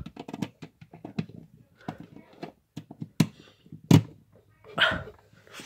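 Handling noises: a run of irregular clicks, knocks and thuds, with a single loud thud about four seconds in.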